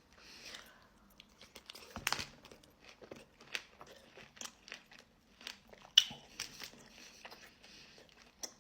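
Close-up chewing and crunching of sweets, with many small sharp clicks and two louder crunches, about two seconds in and again about six seconds in.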